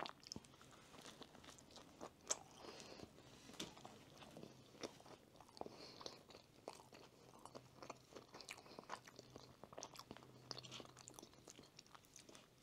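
Faint, close chewing and crunching of a chicken sandwich, with scattered small crackles and clicks as the sandwich is pulled apart by hand.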